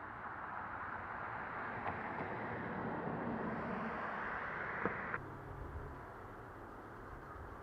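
Steady rushing noise with a faint click or two. About five seconds in it cuts off sharply and gives way to a quieter, deeper rumble.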